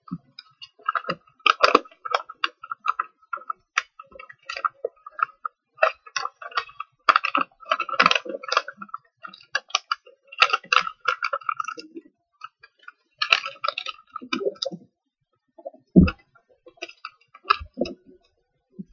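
A sheet of paper being folded and creased by hand: a busy run of crisp crinkles, rustles and small clicks that comes and goes, with one dull thump on the table near the end.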